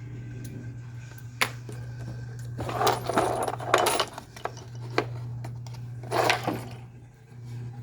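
Light clicks and taps of small watchmaking tools and parts on a workbench, with two short noisy bursts about three and six seconds in, over a steady low hum.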